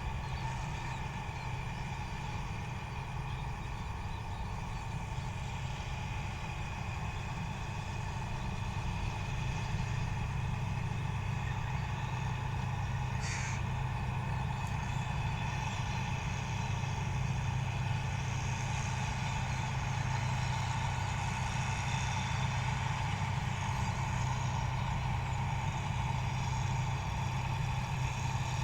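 Paddy combine harvester (8060 model) engine and machinery running steadily, growing a little louder partway through, with one brief high squeak about halfway.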